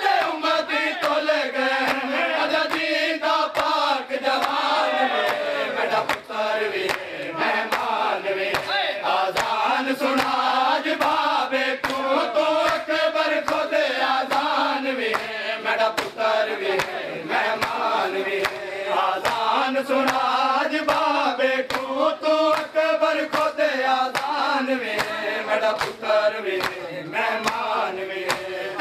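Group of men chanting a noha (Muharram mourning lament) together, with hands slapping on bare chests (matam) in a steady beat under the chant.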